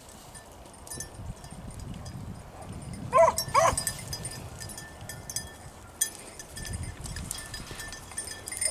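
Beagle rabbit hound giving two short barks, about half a second apart, about three seconds in.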